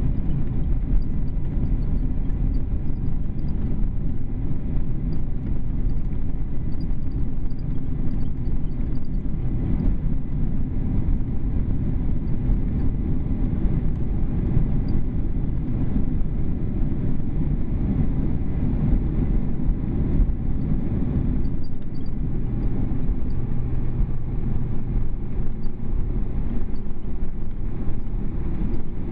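Jet airliner rolling along the runway just after landing, heard inside the cabin: a steady low rumble of the engines and wheels.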